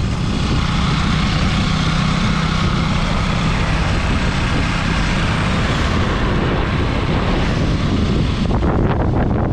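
Motorcycle riding along at road speed: its engine runs with a steady hum under heavy wind rush on the microphone.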